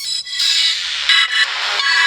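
HTC One M8 stock ringtone starting: a swelling electronic sweep that settles about a second in into bright, sustained chord tones.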